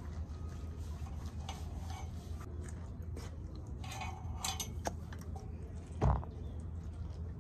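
Small clicks and wet rustles of horse shampoo being squeezed from a plastic squeeze bottle into a hand, over a low steady hum. About six seconds in, a single dull thump, the loudest sound, as the phone filming is bumped against her.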